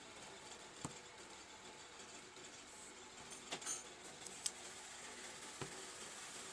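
A wooden curved tailor's ruler shifted and set down on fabric on a cutting table, giving a few soft knocks and a brief rub over a steady faint hiss.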